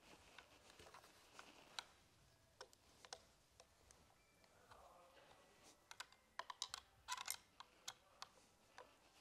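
Faint scattered clicks and taps of a screwdriver working the side-lever screws of an air rifle, with a quick run of clicks a little past the middle.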